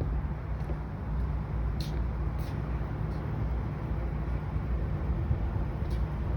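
Steady low outdoor rumble, like distant traffic, with a few faint ticks about two seconds in and again near the end.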